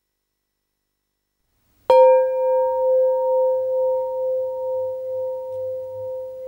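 Silence for about two seconds, then a single bell stroke that rings on in a clear, steady tone, slowly fading with a gentle wavering.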